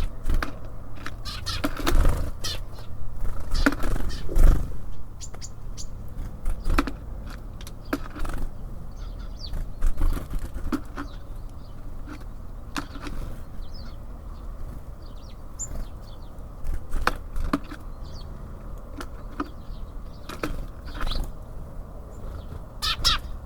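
Small birds at a wooden feeder: irregular knocks and taps of pecking and landing, with brief flutters and short high chirps, over a steady low rumble. The knocking is busiest in the first few seconds.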